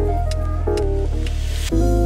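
Background music: a deep bass line under held chords that change about once a second, with a brief hiss about three quarters through.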